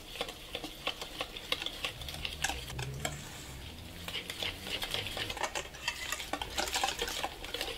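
Wire balloon whisk beating pancake batter in a stainless steel bowl: a fast, uneven run of light clicks and scrapes as the wires hit the bowl and churn the wet and dry ingredients together.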